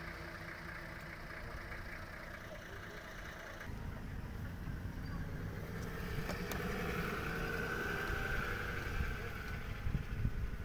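Safari vehicle engine running at low revs, stepping up in level about three and a half seconds in and staying louder.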